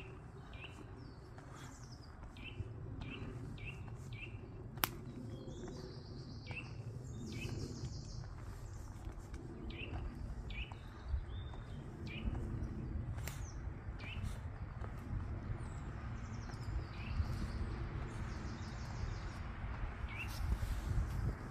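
Wild songbirds singing: short high chirps repeated two or three a second, with a few fast higher trills, over a steady low rumble. A single sharp click comes about five seconds in.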